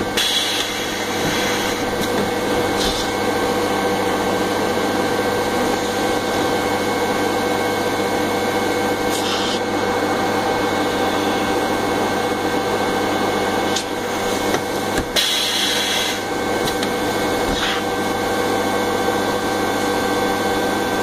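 Balloon printing machine's air blower running steadily, inflating balloons on the nozzle, with a few short hisses of air.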